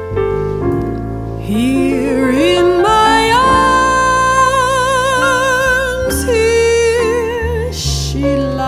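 Jazz ballad: a trombone plays a solo line with vibrato, sliding up about a second and a half in and climbing to a long held high note, which drops a step after about six seconds. Piano and bass accompany underneath.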